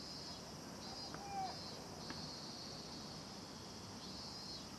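Steady high-pitched insect chorus trilling in pulses, with a faint distant shout about a second in and a faint knock about two seconds in.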